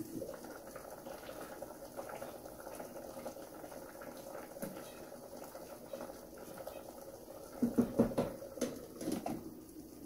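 A pot of mung beans in coconut milk simmering on a gas stove, with a wooden spoon stirring in the steel pot and its lid clattering. The stirring and lid noises are loudest about eight to nine seconds in.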